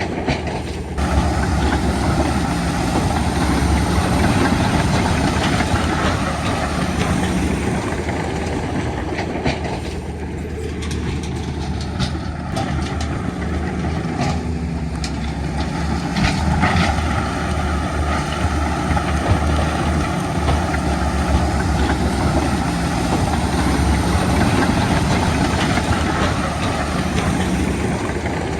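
Heavy diesel earthmoving machinery running steadily, with a run of sharp metallic clanks and rattles through the middle.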